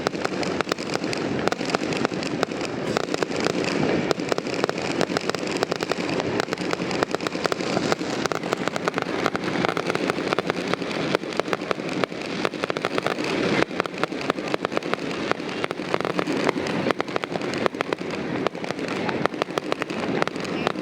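Fireworks display: a dense, continuous barrage of bangs and crackles, many bursts every second without a pause.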